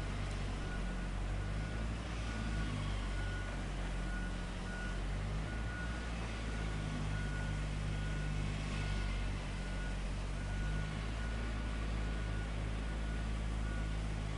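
Heavy diesel machinery running steadily on a construction site, with a warning beeper sounding repeated short beeps over it, typical of a reversing or travel alarm on heavy equipment.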